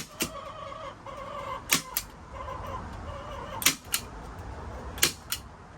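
Domestic hens clucking in drawn-out calls, with pairs of sharp clicks repeating every second and a half or so.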